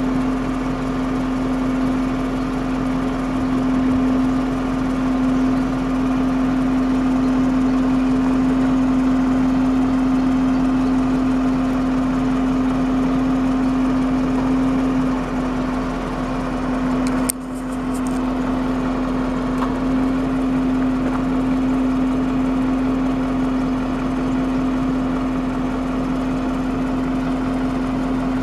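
An engine running steadily at a constant speed, with a strong steady hum over an even low rumble. About two-thirds of the way through it briefly dips with a click.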